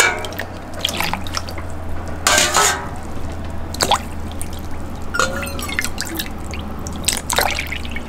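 Water poured from a stainless steel measuring cup into a glass bowl of flour, several pours one after another with splashing and dripping, mixing flour water in a ratio of about eight to one. A steady low hum runs underneath.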